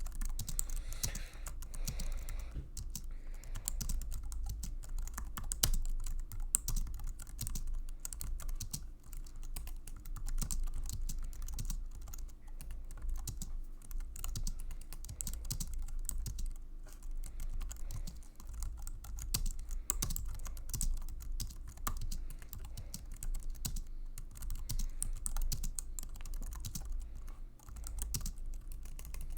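Continuous typing on an Apple full-size keyboard: a fast, irregular stream of key clicks, with a steady low hum underneath.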